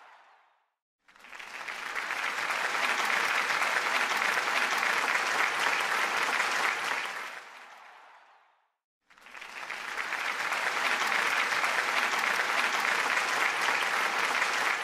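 Crowd applause, a dense even clapping that fades out to silence just under a second in, swells back up, fades out again around eight seconds in, and swells back up once more near the nine-second mark.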